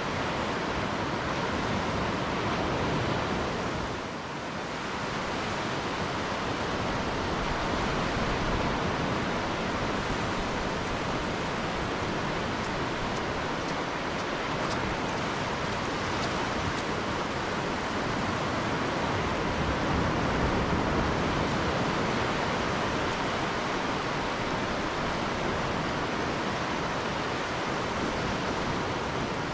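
Steady rushing noise of wind and distant surf, with a brief dip about four seconds in.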